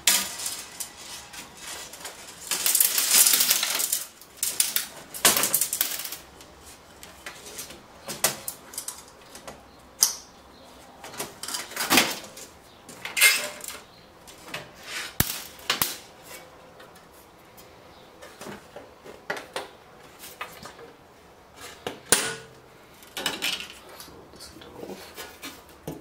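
Aluminium shielding plates and metal chassis parts of a flat-screen TV being handled and pulled free: scattered metallic clicks, clinks and knocks, with a longer scraping rattle about three seconds in.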